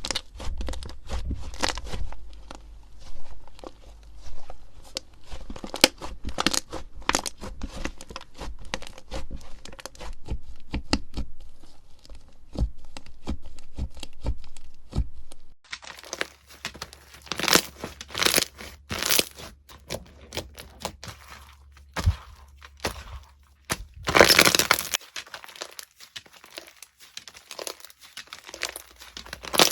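Slime being squeezed and pressed by hand close to the microphone, giving dense crunchy crackles and pops; the texture changes about halfway through.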